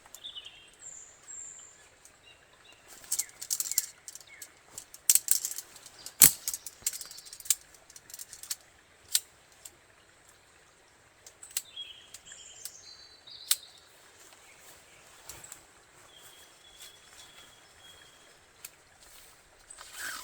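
Rustling, crinkling and clicking of fabric and gear as a hammock is set up, with a sharp knock about six seconds in. Small birds chirp now and then in the background.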